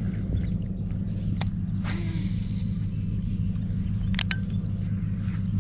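Baitcasting reel being cranked at a steady pace to retrieve a square-bill crankbait, a continuous low whir with a few sharp clicks.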